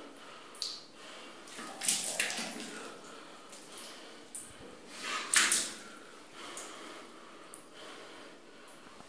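Water running at a tiled bathroom sink, with short splashes, the two loudest about two and five seconds in.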